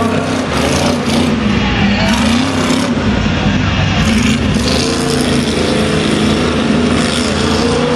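Lifted pickup truck's engine revving hard on a dirt tuff-truck course, its pitch rising and falling repeatedly as the driver works the throttle over the jumps.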